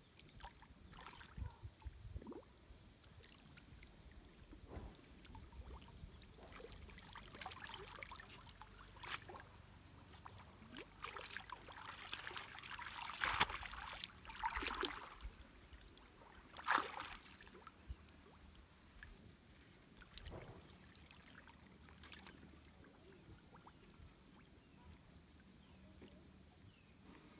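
Pond water splashing and sloshing as a bicycle is hauled up from the bottom and pushed through shallow water, with the loudest splashes about halfway through.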